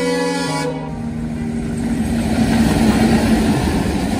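Passenger train coaches rolling past close by: a steady rumble of wheels on the rails that grows a little louder partway through. A piece of music cuts off about half a second in.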